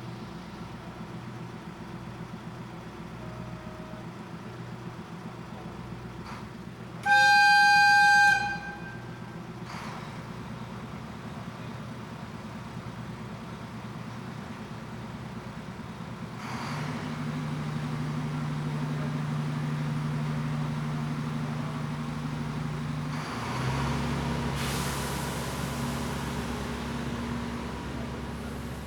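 A diesel train's horn sounds one blast of about a second and a half over an idling engine, the departure signal. Later the diesel engine rises in level and pulls away under power, its note shifting once near the end.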